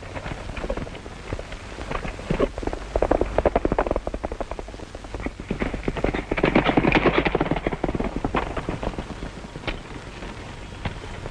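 Horse hooves clattering and scuffling on rocky ground, heard as dense, irregular clicks and thuds on a crackly early sound-film track, with a louder rush of noise about six seconds in.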